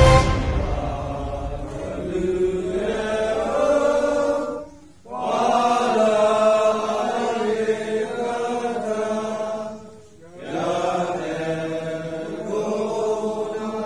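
A group of voices singing a slow anthem in unison, long held notes in phrases, with two short pauses for breath about five and ten seconds in.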